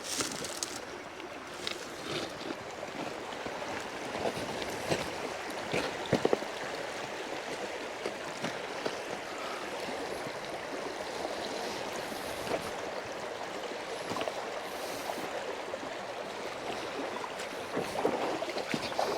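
River water rushing steadily over rocks, with a few scattered knocks, the loudest about six seconds in.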